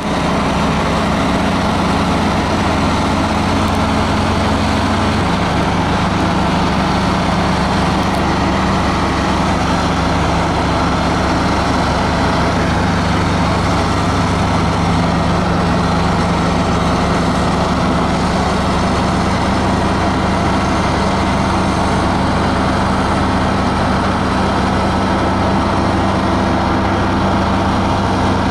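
Cat 330BL track excavator's diesel engine running steadily, its pitch settling slightly lower about five seconds in.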